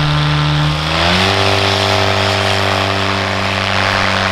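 Viking 195 engine, a turbocharged Honda Accord engine with a reduction gearbox, driving the propeller of a light STOL plane. It runs steady at low power, then about a second in its pitch rises quickly as it goes to full throttle and holds at takeoff power, louder and with more propeller rush, through the short takeoff run and liftoff.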